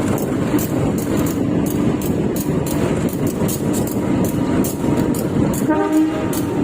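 Passenger train's wheels running on the track, heard through the coach's toilet drain opening: a steady loud rumble with fast regular clicking. A brief pitched tone sounds near the end.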